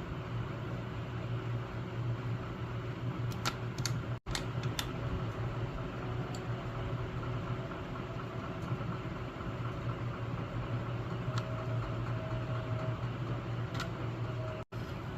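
Steady electrical hum of a soldering gun's transformer, with a few light ticks and clicks around the fifth second and again near the end.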